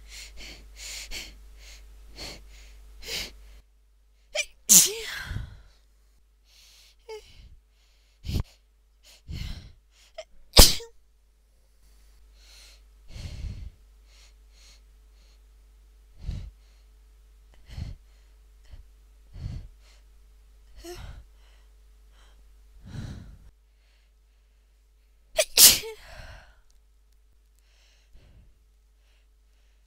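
A woman with a head cold in a sneezing fit: many short, gasping breaths building up, broken by several sharp sneezes, the loudest about 5, 10 and 25 seconds in.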